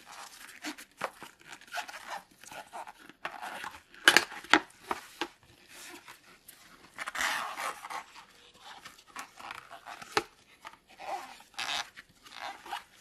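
A cardboard retail box being opened by hand: its flap is pulled open and the inner box slides out, with irregular scraping and rustling of card and a few sharp knocks, the loudest about four seconds in.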